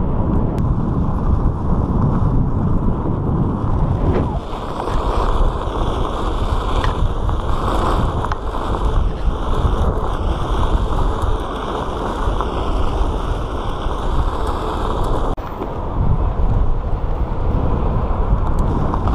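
Onewheel XR riding on asphalt: wind rushing over the camera microphone mixed with tyre rumble from the board rolling along, changing suddenly about fifteen seconds in.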